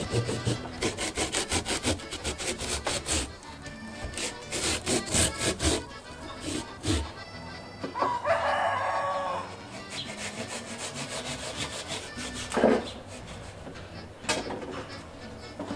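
Hand pumpkin saw cutting through a thick Angola squash in quick back-and-forth strokes, in two spells during the first six seconds. About eight seconds in, a rooster crows once, and a few sharp knocks follow later.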